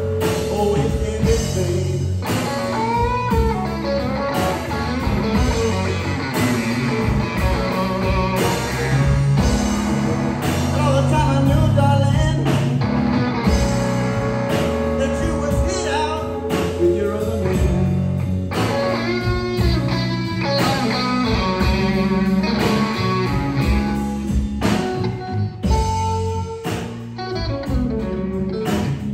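Live blues band playing: a Strat-style electric guitar carrying the melody with bent notes over electric bass and a drum kit.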